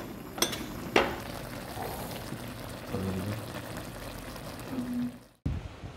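Steady hiss of food cooking on a stove, with two sharp utensil clinks about half a second and a second in.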